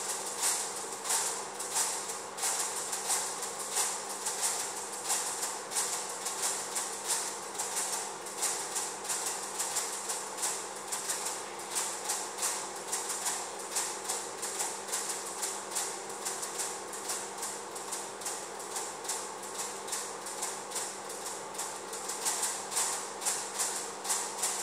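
Flip-dot display panels clicking as their electromagnetically flipped dots turn over, the clicks sequenced into a dense percussive rhythm with louder accents two or three times a second, growing louder near the end. A faint low steady hum runs underneath.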